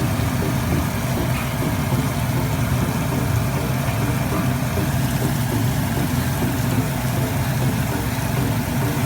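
Bananas frying in oil with melted sugar in a pan over a low flame: a steady sizzle over a constant low hum.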